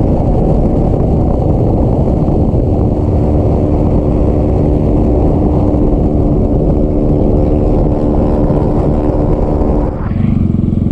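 Bajaj Pulsar 200 cc single-cylinder motorcycle engine running under way, with wind rushing over the microphone. About ten seconds in the sound dips briefly and settles into a steadier, lower note.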